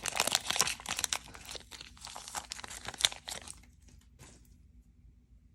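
Crinkling and tearing of a trading-card booster-pack wrapper being torn open by hand: a dense crackle for about three and a half seconds, then dying away to faint rustles.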